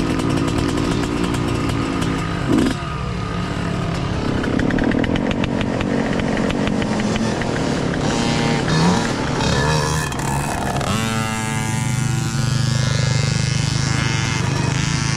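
Small engines of several kids' mini dirt bikes running and revving, their pitch rising and falling as they pull away. A short knock about two and a half seconds in.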